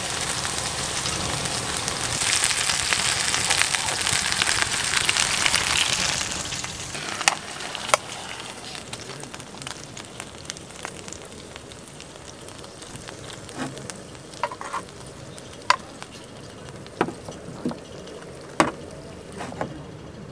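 Beef steak sizzling in a frying pan, strongest for the first six or seven seconds, then dying away. After it come a few sharp clicks and taps as the pan and utensils are handled.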